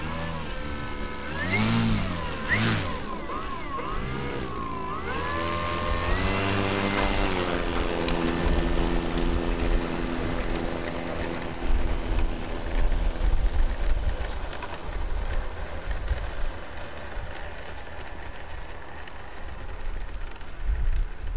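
Electric motor and propeller of a SebArt Miss Ultimate 50E RC biplane, throttled up and down in several short blips, then held at a steady whine that fades as the plane taxis away. A low, gusty rumble runs underneath.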